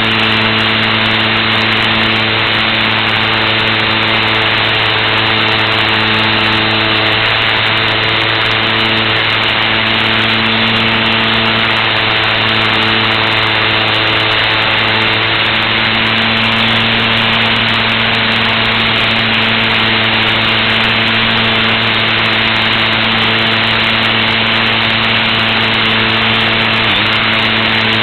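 Electric motor and propeller of a HobbyZone Super Cub LP radio-controlled model plane running steadily in flight, heard from an onboard camera: an even-pitched hum under a loud rush of air.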